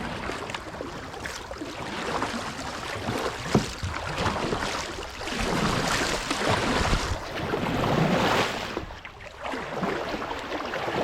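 Water swishing and splashing around a kayak moving along a shallow creek, in uneven swells, with a sharp knock about three and a half seconds in.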